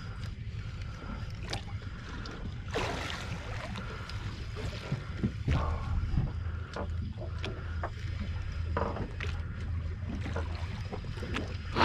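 Steady low rumble aboard a fishing boat, with scattered clicks and knocks of gear and a brief rush of noise about three seconds in.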